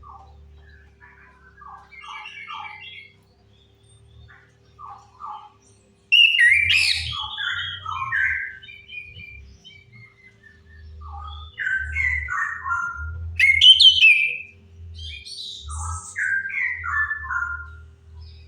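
Chestnut-capped thrush (anis kembang) song played as a lure recording: varied phrases of quick whistled and chattering notes. It is soft for the first few seconds and louder from about six seconds in, over a faint steady hum.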